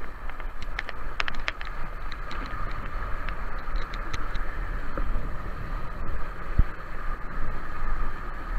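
Wind buffeting the microphone with a deep rumble, over the steady rush and splash of water under a kiteboard riding across choppy water. Scattered sharp ticks in the first couple of seconds.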